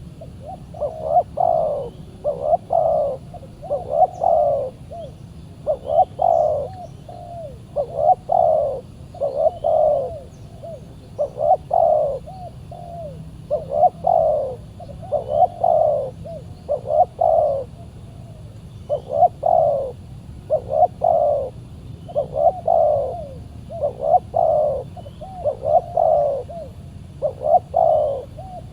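Spotted dove cooing: a steady run of repeated coo phrases, one about every one and a half seconds.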